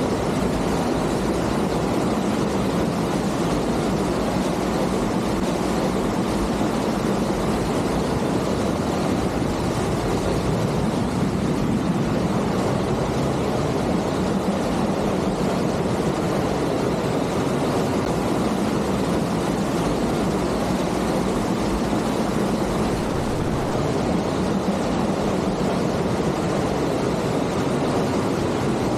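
Waterfall: a steady, even rush of falling water with no let-up, weighted toward the low and middle range.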